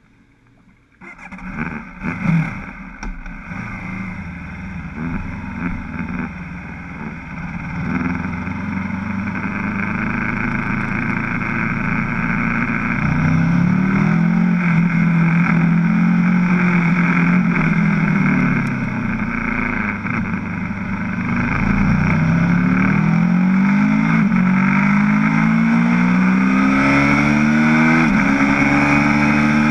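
Aprilia RSV4 superbike's V4 engine, heard from on board. It starts about a second in and takes a few throttle blips, then runs at a steady held pitch while held to pit-lane speed. Near the end it revs hard through several quick upshifts, the pitch climbing and dropping back at each gear change.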